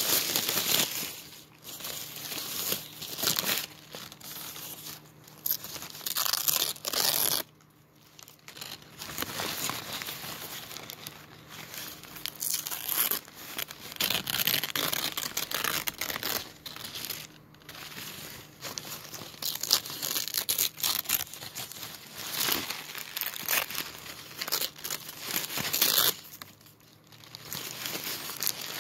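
Subway sandwich wrapper paper crumpled and torn by hand, in irregular bursts of crinkling and ripping with a few short pauses.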